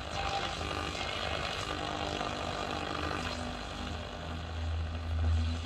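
FM inter-station static: steady hiss with a low hum underneath, from a vintage Kenwood KT-5300 stereo tuner played through an amplifier as its dial is turned between stations.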